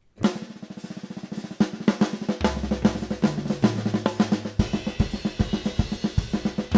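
Drum kit playing rapid flam and triplet patterns on the snare in Swiss Army triplet variations. Toms and bass drum join in about two and a half seconds in, and a cymbal rings over the pattern in the second half.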